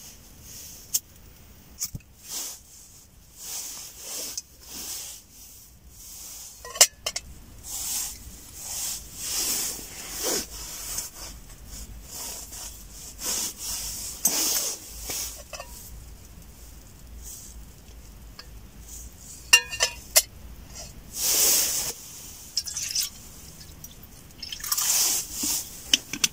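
Camping cookware being handled: rustling swishes and sharp clicks as a small gas stove and aluminium pot are set up, with brief metallic clinks. Near the end, water is poured from a plastic bottle.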